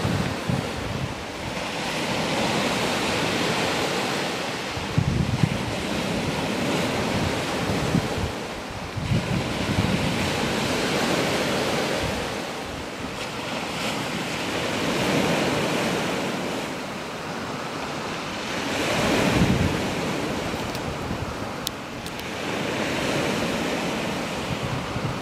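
Sea surf breaking and washing on a shingle beach, swelling and fading every few seconds, with wind buffeting the microphone.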